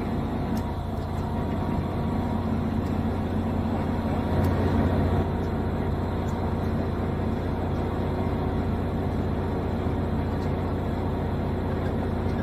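Fishing boat's engine running steadily, a continuous low drone with a hum, slightly louder for about a second near the middle.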